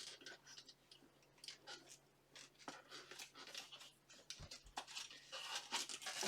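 Faint handling noises of a strap being fastened on steel armor: scattered soft clicks and rustles, with a dull thump about four and a half seconds in.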